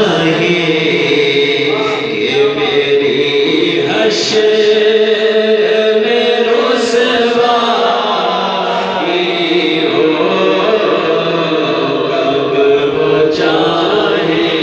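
Men singing an Urdu devotional kalam (naat) into microphones in a chanting style, holding long notes, with more than one voice.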